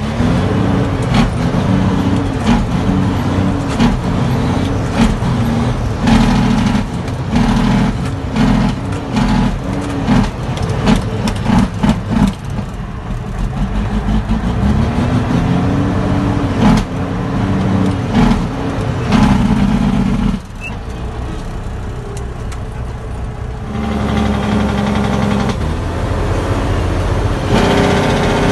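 Heavy diesel truck engine heard from inside the cab, its pitch rising and falling over and over as the manual transmission is shifted through the gears, with frequent knocks and rattles. About two-thirds of the way through it drops to a lower, steadier running for a few seconds, then picks up again.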